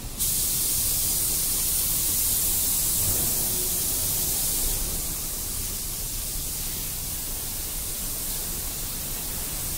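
Compressed-air gravity-feed spray gun hissing steadily as it sprays a coat of primer onto a car body. The hiss cuts in sharply when the trigger is pulled and eases slightly about halfway through.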